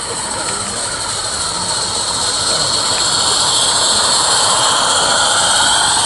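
Steady rushing engine noise that slowly grows louder, with a slow glide in pitch, as of an engine passing.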